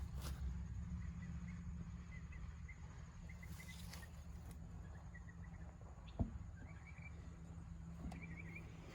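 Faint outdoor ambience: a steady low hum with scattered short, high chirps from small animals, and one soft knock about six seconds in.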